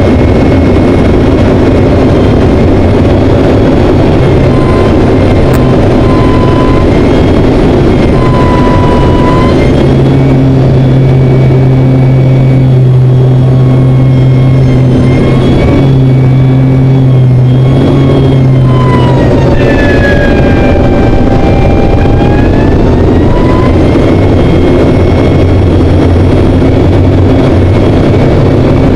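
Turboprop engine and propeller of a KT-1B trainer aircraft, heard as a loud steady drone inside the cockpit in formation flight. Whining tones over the drone dip in pitch and climb back about twenty seconds in.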